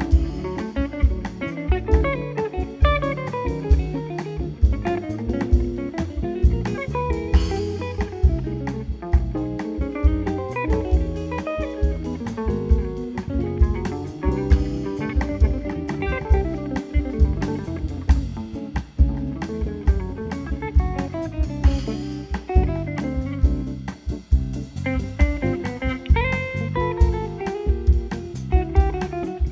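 Instrumental band music from a small quartet: a guitar plays busy melodic runs over a bass line and a steady drum-kit beat, with a few long held notes near the end.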